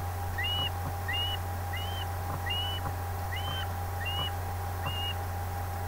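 Osprey calling: a series of seven short chirps, each sliding upward and then levelling off, about one every 0.7 seconds. A steady low hum runs underneath.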